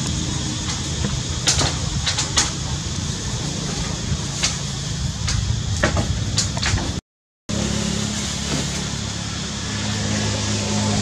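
Sharp knocks and taps of macaques scrambling on a corrugated metal roof, a few scattered strikes, over a steady low rumble. The sound cuts out for half a second about seven seconds in.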